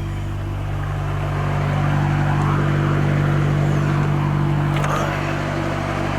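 Diesel engine of a semi truck idling steadily.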